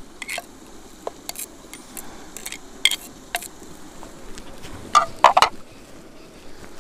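A steel knife scraping and tapping against a terracotta bowl as chopped onions are pushed into a cast-iron pot, then a quick cluster of louder clinks of clay dishes about five seconds in.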